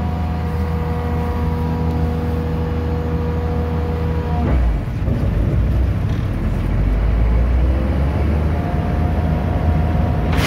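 An engine running at a steady idle, with an even hum. About four and a half seconds in, the steady tones drop out and a rougher low rumble carries on.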